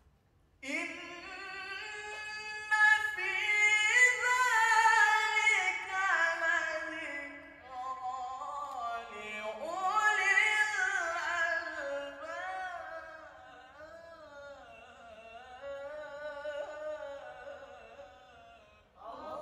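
A man's voice reciting the Quran in the melodic tilawah style, with long ornamented phrases of held notes and rising and falling runs. There are two long breaths' worth: the first starts about a second in, and the second grows softer toward the end.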